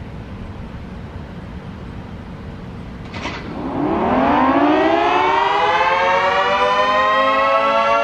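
Federal Signal 3T22 three-tone outdoor warning siren winding up about three and a half seconds in, at the start of a full attack signal: a chord of several tones rises steeply, then levels off and keeps creeping higher, much louder than the low background rumble before it. A brief noise burst comes just before the wind-up.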